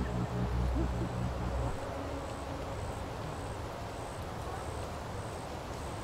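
A low droning hum that stops just under two seconds in, then a steady outdoor background hiss.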